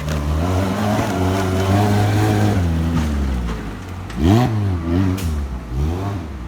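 Off-road 4x4 competition vehicle's engine working at varying throttle, then revved hard three times in quick succession, each rev rising and falling in pitch, about a second apart.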